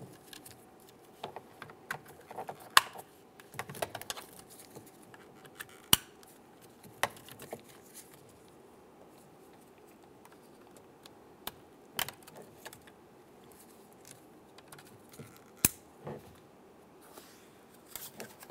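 Plastic wiring connectors being pushed onto a car door's power window, door lock and mirror switch panel: scattered sharp clicks, about five of them louder, with light rattling of the plastic panel and wires in between.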